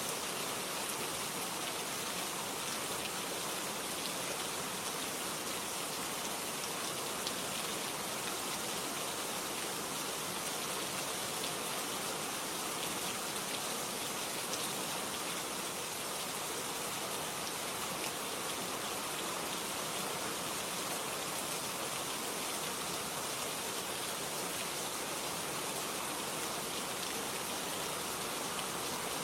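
Steady rain ambience: an even hiss of rainfall with faint scattered drop ticks.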